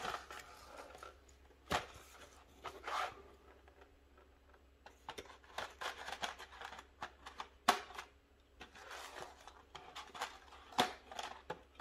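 Cardboard carburetor-kit box being handled and its small parts searched through: soft rustling with scattered light clicks and taps, the sharpest a little under 2 s in, near 8 s and near 11 s.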